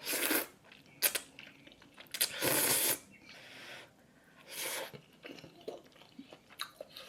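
Close-miked eating sounds of spicy curry ramen. About four loud, airy, noisy bursts of breath and slurping come in the first five seconds, the longest about two and a half seconds in. Soft, wet chewing clicks follow as the bite is too hot.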